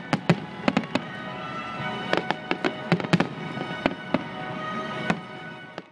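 Aerial fireworks bursting: a rapid, irregular series of sharp bangs, about fifteen in all, over steady background music. The sound fades away near the end.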